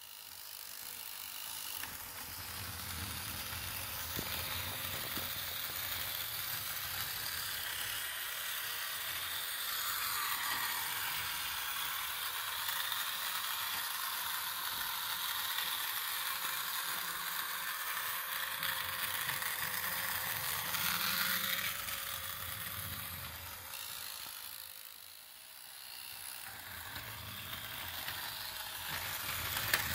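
Motorised toy space capsule of a 1970 TOMY Grippidee Gravidee set running along its plastic track: a small motor and gears whirring and clicking against the track's toothed rack. The sound dips briefly and then returns near the end.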